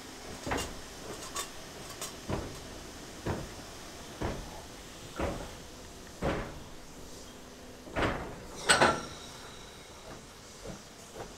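Narrow-gauge steam tank locomotive rolling slowly away over the track, giving a regular knock about once a second, with a louder double clank and a short high ring about nine seconds in.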